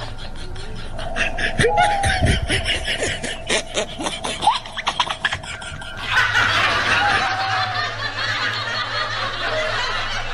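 Rapid snickering laughter, in quick short bursts with rising and falling pitch. About six seconds in, a dense hissing texture takes over.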